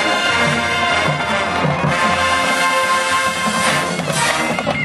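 Marching band playing full out, brass horns holding loud chords over low drum beats.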